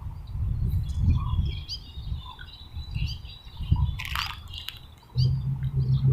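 Small birds chirping over and over, short high chirps over a low rumbling background. A brief rushing noise comes about four seconds in, and a steady low hum starts near the end.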